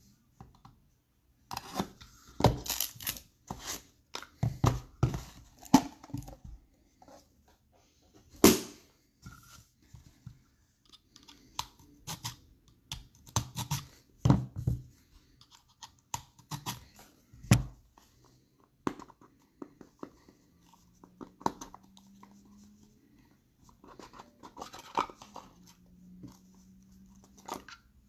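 A sealed box of baseball cards being opened by hand: a run of sharp tearing, scraping and knocking sounds, densest in the first eighteen seconds, then sparser handling noises as the card stack is taken out.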